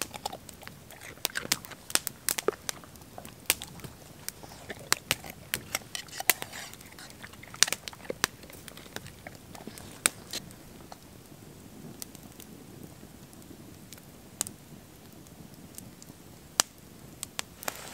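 Dog crunching a raw carrot: irregular sharp crunches, thick at first and sparser after about ten seconds.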